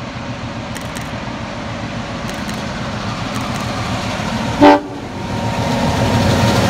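NSW 42 class diesel-electric locomotive 4201 approaching at the head of a passenger train, its engine and wheels growing steadily louder. A single short horn toot sounds a little under five seconds in.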